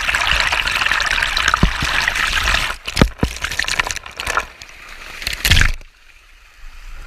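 Water of Erawan Waterfall rushing and splashing, with a few sharp knocks; it cuts off suddenly near the end.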